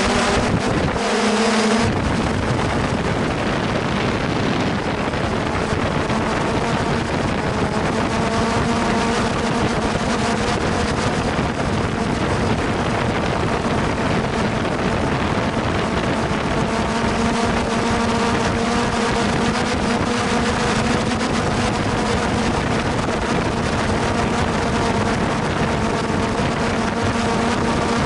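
Hexacopter's electric motors and propellers humming steadily in flight, picked up by the onboard camera, with wind rushing over its microphone.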